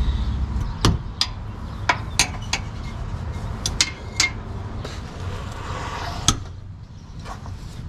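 Irregular sharp metallic clinks and knocks of a socket wrench against a bolt and steel brace in an engine bay, as a tight 15 mm bolt is worked loose. The clinks come in clusters over the first four seconds, with one more a little past six seconds.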